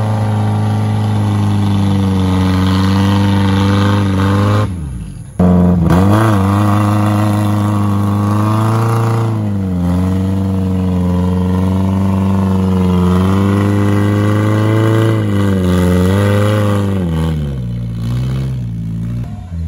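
Off-road 4x4's engine revving hard under load, its pitch repeatedly climbing and falling, with a short break about five seconds in.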